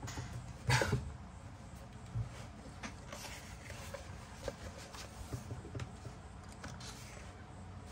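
Pages of a paper coloring book being handled and turned: soft paper rustles and light taps, with one short, louder sound about a second in.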